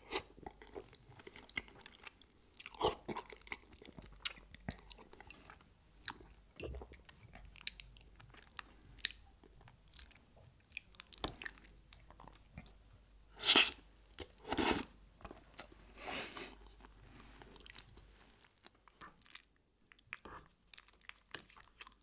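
Close-miked chewing and wet mouth sounds of someone eating creamy fettuccine Alfredo, with scattered small clicks of a fork in a glass bowl. Two louder mouth sounds come a little past halfway.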